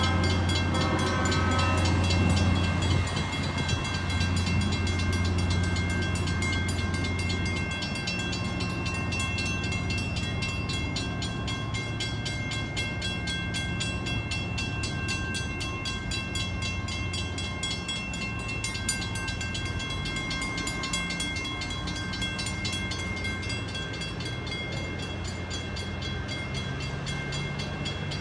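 A diesel-hauled passenger train, led by an EMD GP7 or CF-7 diesel locomotive, rolls past over a grade crossing. Its engine rumble is strong for about the first seven seconds and then fades as the train moves off. A grade-crossing warning bell keeps ringing steadily throughout.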